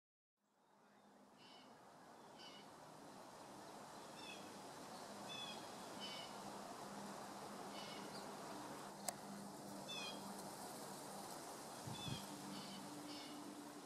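Faint bird calls: short high chirps, often in quick downward-slurred pairs, repeated at irregular intervals over a steady low hiss, with one sharp click about nine seconds in.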